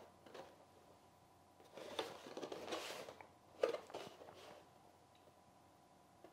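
Cardboard model-kit box being turned over in the hands: faint rubbing and rustling, one short sharp knock a little past halfway, and quiet stretches between.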